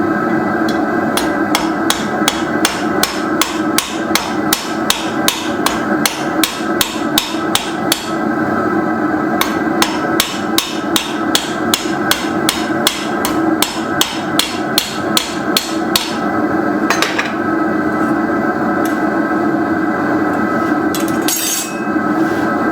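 Blacksmith's hand hammer striking hot steel on an anvil in a fast, even rhythm of about two to three blows a second, with a short pause partway through. The hammering stops about two-thirds of the way in. A steady background noise runs under it throughout.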